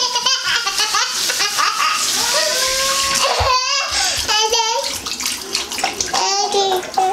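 Kitchen tap running steadily as green beans are rinsed under it, with a young child's voice over it.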